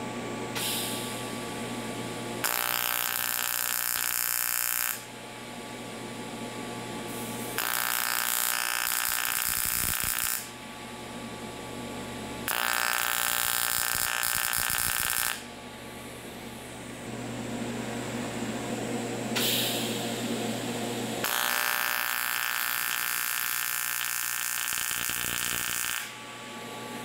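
Low-amperage AC TIG welding arc on a thin aluminum can, buzzing with a hiss in separate bursts: four main strikes of about three seconds each, the last one longer, each starting and cutting off abruptly. A steady hum continues between the strikes.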